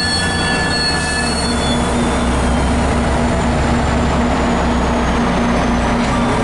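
A MARC commuter train passing close by: high-pitched wheel squeal in the first couple of seconds fades out, leaving the diesel locomotive at the rear of the train rumbling past with a steady engine drone.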